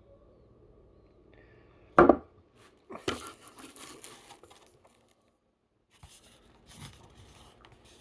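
A loud knock about two seconds in, followed by a second or so of crinkling and tearing and softer rustling near the end, as food and its wrapping are handled.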